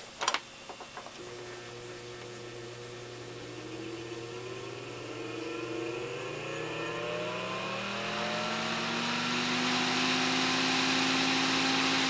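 Old AC muffin fan with a shaded-pole motor being switched on: a few clicks as its leads are connected, then a steady electrical hum and a whine that rises in pitch as the fan slowly spins up, with the rush of air growing. The pitch levels off near the end as it reaches full speed.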